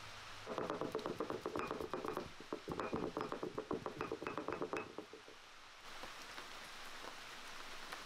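Stone roller crushing coriander seeds on a flat grinding stone: a fast crackling grind in two bouts of rolling, with a short break between them, stopping about five seconds in.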